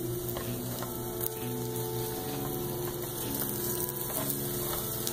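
Eggs frying in butter in a nonstick skillet, a steady sizzle with a few faint pops, over soft background music.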